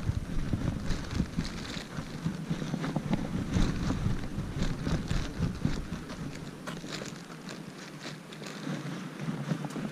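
Wind buffeting a body-worn camera's microphone as a rumble that eases after about six seconds, with scattered rustles and clicks from walking with a dog on a leash.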